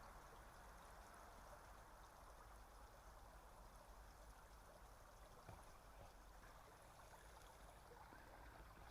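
Near silence: a faint, steady hiss of room tone or distant running water, with one small tick about five and a half seconds in.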